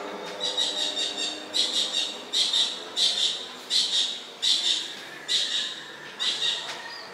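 An animal's high, buzzy chirping call repeated at an even pace, about nine calls, each roughly half a second long.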